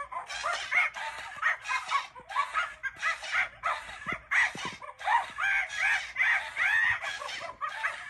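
Gemmy Swinging Monkey animated plush toy playing its recorded monkey screeching and chattering through its small built-in speaker as it swings. The sound starts right at the beginning as a run of rapid calls, about two a second, thin and tinny with no low end.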